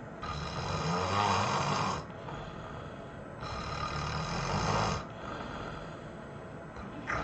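A person snoring: two long, loud snores about three seconds apart, each with a low buzzing rasp, and quieter breathing between them.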